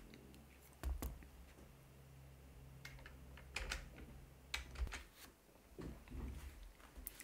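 Faint handling noises: a few scattered light clicks and knocks, over a low steady hum.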